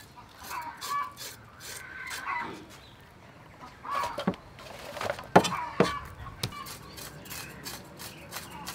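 Chickens clucking in the background while a cleaver scrapes and chops a barracuda on a thick wooden chopping block. A few sharp knocks of the blade against the block come in the middle, the loudest a little past halfway.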